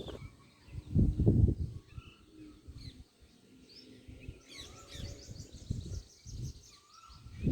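Birds calling outdoors: scattered short chirps, with a quick run of repeated high notes about halfway through. Low rumbling gusts of wind buffet the microphone, loudest about a second in.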